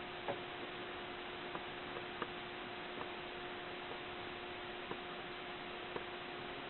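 Domestic cat snoring faintly in her sleep: soft clicks roughly every two seconds, over a steady hum and hiss. The owner later wondered whether a tumor was causing the snoring.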